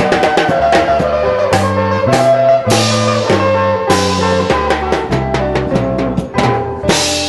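A music track with a drum kit, a bass line and sustained pitched instruments. Several cymbal crashes ring out across the bars.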